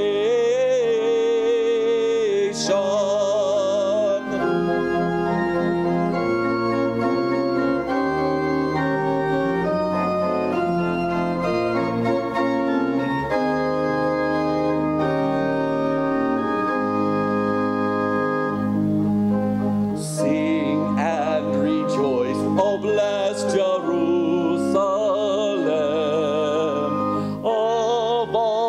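Worship music: held, sustained chords, with a singing voice briefly at the start and singing coming back about two-thirds of the way in.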